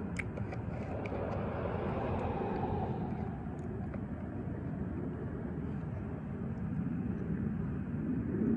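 Steady rumble of distant traffic, swelling about two seconds in and easing off by four seconds as a vehicle passes, with a few light clicks near the start.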